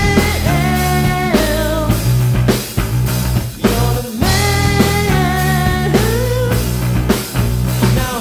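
Live rock music from bass and drums: a semi-hollow electric bass guitar played through effects pedals over a drum kit.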